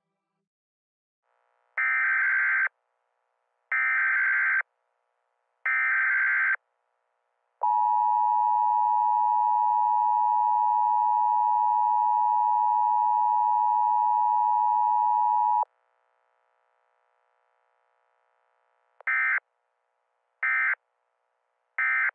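Emergency Alert System tones: three data bursts of about a second each (the SAME header), then a steady attention tone held for about eight seconds. Three shorter bursts near the end are the end-of-message code.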